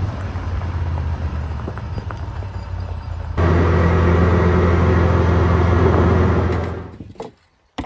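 Side-by-side UTV running at speed, with a steady low engine and drivetrain hum plus wind and tyre noise. It jumps louder about three and a half seconds in and fades out near the end.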